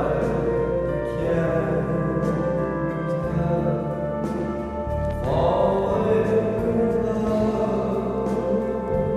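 An old recorded song with singing, muffled as if playing from another room, with vinyl record crackle over it.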